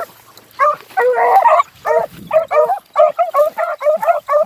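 Beagle hounds baying on a trail: a longer bay about a second in, then a fast string of short yelping barks, about three a second.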